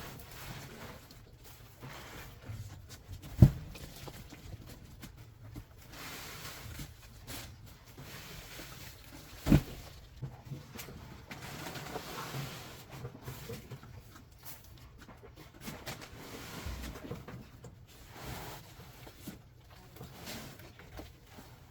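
Goats moving about and feeding in a pen, with scattered small knocks and rustling and two sharp knocks, the first about three and a half seconds in and the second about nine and a half seconds in.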